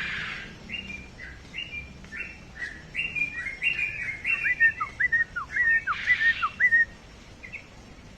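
Yellow-vented bulbul (trucukan) singing a continuous rapid song: a run of short bubbly chirps that quickens and grows louder into a fast string of sharp downward-slurred notes, then breaks off near the end.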